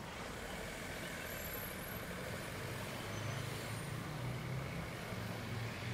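City street traffic noise, with a motor vehicle's engine running close by and getting louder from about halfway through.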